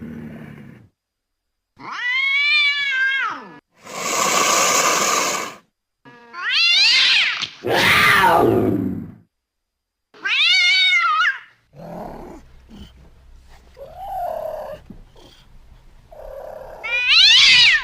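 A series of separate cat and cougar calls: meows and yowls with gliding pitch, one with a wavering pitch, one a noisy hiss-like call, and one sliding steeply down, each a second or two long with short silences between. Quieter, lower calls follow from about twelve seconds in, then a loud rising yowl near the end.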